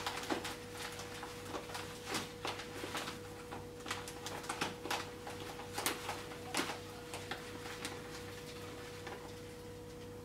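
Dry porridge oats poured from a bag into a glass bowl on kitchen scales: irregular soft pattering of the falling oats with crinkling of the bag, thinning out after about seven seconds.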